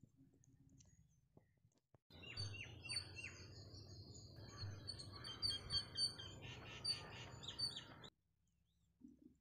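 Several small birds chirping and singing at once, with quick high calls and a few short falling notes, over a low steady background. The sound starts suddenly about two seconds in and cuts off abruptly near the end.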